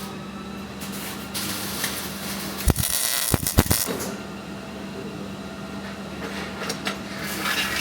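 Welding shop ambience: a steady electrical hum and fan noise, with a stretch of hissing and a few sharp clicks about three seconds in.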